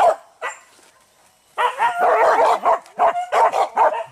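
Hunting dogs yelping and barking: one short call at the start, then, after a pause of about a second, a quick run of yelps that lasts almost to the end.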